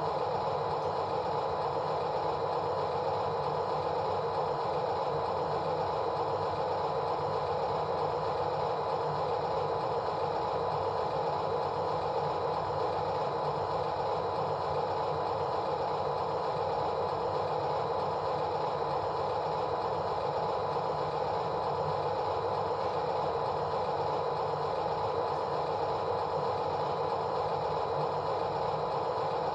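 A steady engine hum that holds the same pitch and level throughout, with no revving or knocks.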